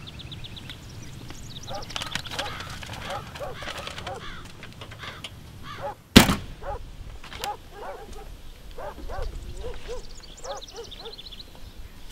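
Birds chirping and calling, with short repeated notes and higher trills, and a single sharp bang about six seconds in, the loudest sound.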